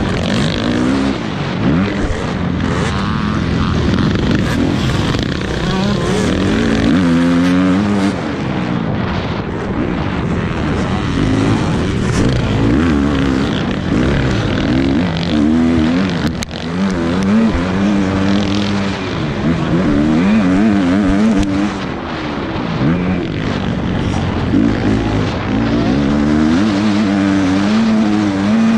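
Motocross dirt bike engine revving hard, its pitch climbing and dropping again and again as the throttle is opened and chopped around the track, over a steady rush of noise.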